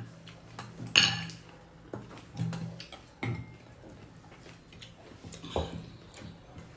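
Cutlery clinking and scraping against a dinner plate during a meal: a few sharp clinks, the loudest about a second in, one with a brief ring, over a low steady hum.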